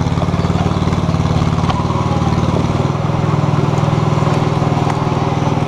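Radio-controlled scale model excavator's hydraulic drive running with a steady, even buzz as the arm pushes the bucket into a model house.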